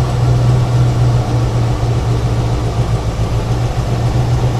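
A 1975 Ford Ranchero's 400 stroker Cleveland V8 idling steadily just after starting, with an even low hum. Its manifold vacuum port is closed off by a vacuum gauge, so the leak that made it stumble is sealed.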